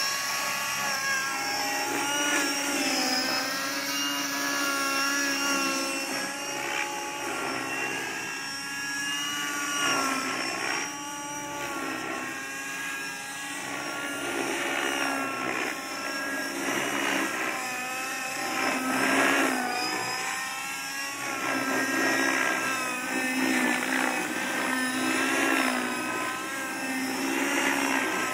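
Align T-Rex 600 radio-controlled helicopter in flight, its motor and rotor making a continuous high whine whose pitch rises and falls again and again as it manoeuvres.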